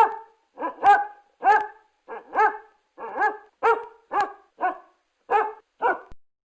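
A dog barking over and over: about a dozen short barks at roughly two a second, some in quick pairs, stopping about six seconds in.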